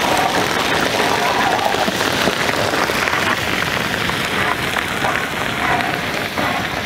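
Crushed paste and dried red chillies frying in hot oil in a large wide metal pan, sizzling and crackling hard as a ladle stirs them; the crackle eases slightly in the second half.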